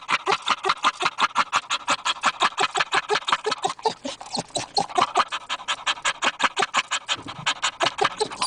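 Dog "laughing": rapid, breathy panting huffs, about seven a second, kept up steadily.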